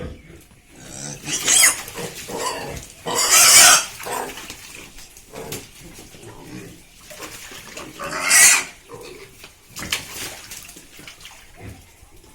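Pigs squealing in three loud outbursts, at about a second and a half, three and a half (the loudest and longest) and eight and a half seconds in, with quieter pig noises between.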